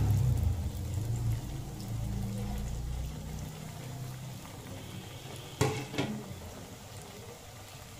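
Coated vegetable chops deep-frying in hot oil in an aluminium karahi, a soft steady sizzling and bubbling. A low hum fades out a few seconds in, and two sharp clicks come about half a second apart later on.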